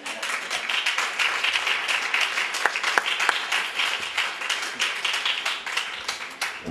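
Audience applauding: many hands clapping, tapering off near the end.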